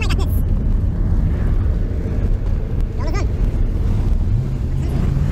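Car engine and road noise heard from inside the moving car: a steady low rumble with an engine hum that rises in pitch about four seconds in as the engine picks up revs. Two brief high-pitched chirps sound over it, once at the start and once about three seconds in.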